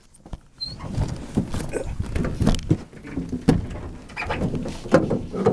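Irregular knocks, clicks and rustling close to the microphone, from movement on the floor of a small metal boat.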